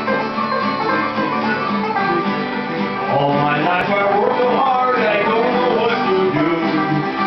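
Old-time string band playing: banjo and acoustic guitar with fiddle.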